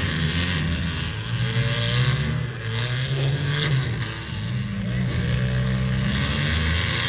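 Several demolition derby cars' engines running across the arena, a continuous low rumble that rises and falls in pitch as the drivers rev.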